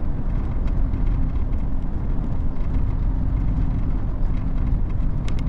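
Heavy truck cruising on a highway, heard from inside the cab: a steady low rumble of engine and road noise.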